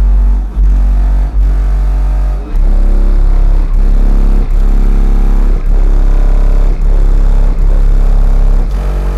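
Car audio subwoofer system playing bass-heavy music very loud, with deep sustained bass notes dominating and short breaks about every second.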